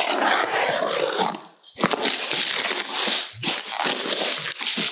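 Packing material crinkling and rustling as a packed flexible solar panel is handled and moved, dropping out briefly a little under two seconds in.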